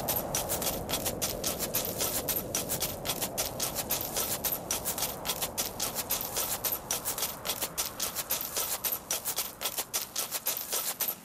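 Ice being worked by hand: a dense run of sharp, irregular clicks and taps, several a second, over a low rushing noise that fades over the first few seconds.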